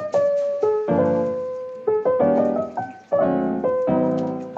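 Background piano music: a slow tune of single notes and chords, each struck and left to fade.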